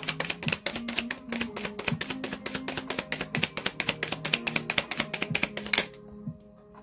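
A deck of oracle cards being shuffled by hand: a rapid run of clicks that stops about six seconds in, over soft background music.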